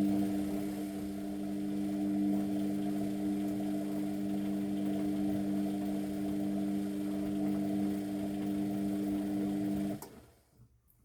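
Luxor WM 1042 washing machine, mid-rinse, running with a steady electric hum that switches on with a click and cuts off suddenly about ten seconds in.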